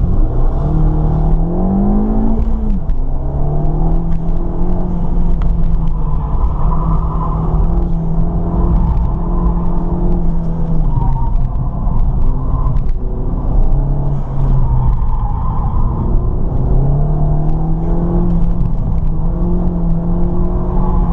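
Ford Fiesta ST's turbocharged four-cylinder engine driven hard on an autocross course. The engine note climbs and drops sharply about three seconds in at an upshift, then mostly holds steady, dipping and climbing again as the throttle is lifted and reapplied through the turns.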